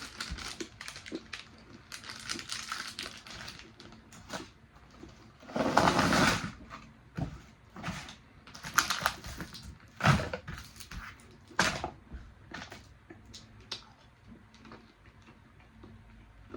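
Close-miked chewing of a handful of Skittles: a run of small, irregular clicky mouth sounds. A louder, longer noise comes about six seconds in.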